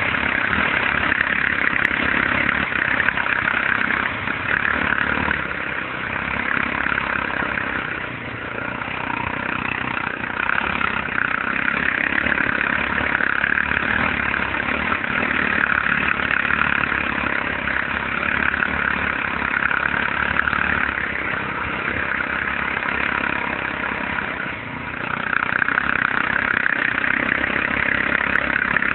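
ATV engine running continuously, its loudness rising and falling, with brief dips about 8 and 24 seconds in.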